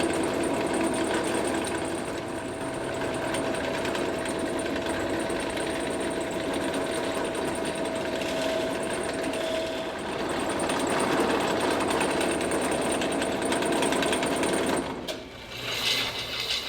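Woodworking power machine running steadily with a constant whine, then shutting off about fifteen seconds in. Short mechanical clicking follows near the end.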